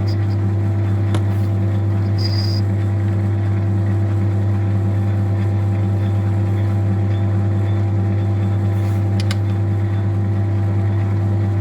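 Metal lathe running steadily with a strong low hum while boring out the combustion bowl of a VW 1.9 TDI PD piston held in a four-jaw chuck. A brief high-pitched whine about two seconds in and a couple of sharp ticks around nine seconds.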